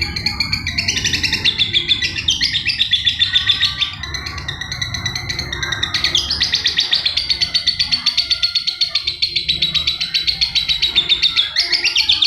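Lovebird singing nonstop: long, fast runs of rapid high chirps, about ten a second, with short breaks about four and six seconds in.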